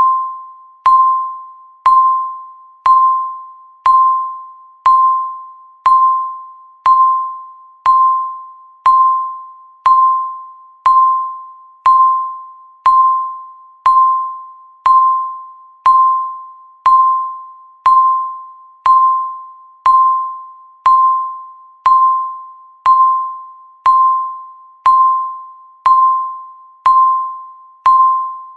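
Countdown timer beeping once a second: a single high electronic tone that starts sharply and dies away before the next, ticking off each passing second.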